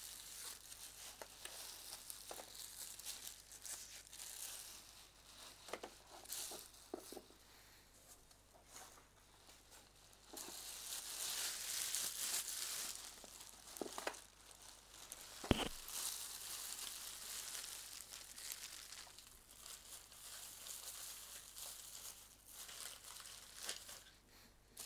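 Rummaging through a suitcase: rustling and crinkling of packed items being moved about, with scattered light knocks and one sharp click about two-thirds of the way through.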